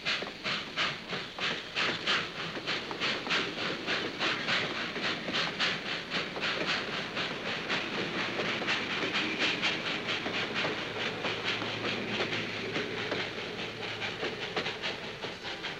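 Train running by, with a quick, even rhythm of hissing beats, about three a second.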